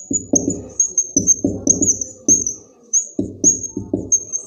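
Marker writing on a whiteboard: a quick, irregular series of short stroke sounds as words are written, pausing briefly about two-thirds of the way through. A steady run of short high chirps sounds over it.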